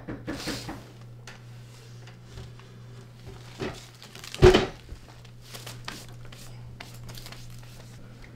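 Rustling and handling sounds as a person stirs on a couch and brushes chips off his shirt, with a loud thump about four and a half seconds in.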